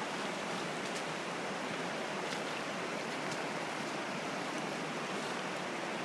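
Steady rush of a shallow river running over rapids and riffles.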